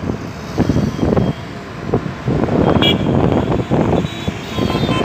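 Road and engine noise of a moving vehicle heard from inside it, rising and falling unevenly. A brief high-pitched tone sounds about three seconds in.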